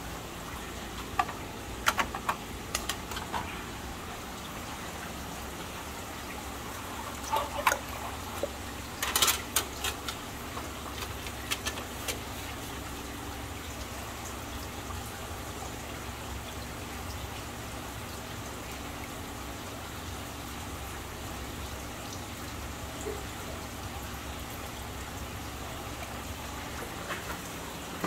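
Steady trickle and bubble of aquarium water running through the tanks, with a low steady hum beneath. A few clusters of short sharp knocks and clicks come in the first twelve seconds.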